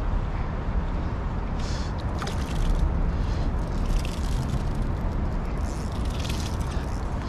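Steady low rumble of traffic on the road bridge overhead, with a few short splashes as a small hooked tailor is lifted from the water and flicks at the surface.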